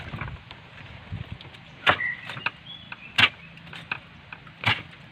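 Three sharp knocks on a wooden dugout canoe, roughly a second and a half apart, while a freshly caught fish is worked out of a nylon cast net, with smaller clicks between them. A short high chirp follows the first knock.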